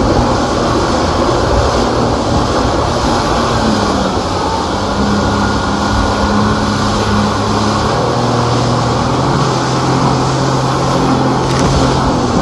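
A motor running steadily under a loud rushing noise, with its low hum shifting in pitch a couple of times.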